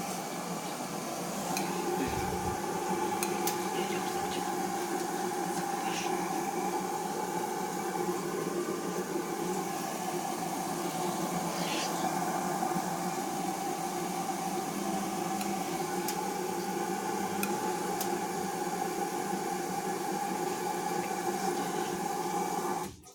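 LG WD-80155NUP front-loading washing machine running a delicate wash: a steady motor hum with a few steady tones, a wash-noise haze and occasional faint clicks. The sound cuts off sharply near the end.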